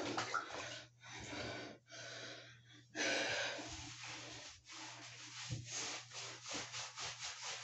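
Hands scrubbing soap into a dog's wet fur: a run of short rubbing strokes, about three to four a second, in the second half, after a few breathy huffs near the start.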